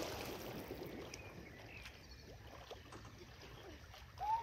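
Lake water churning and sloshing after a person has jumped in, fading over the first couple of seconds to faint lapping. A voice calls out near the end.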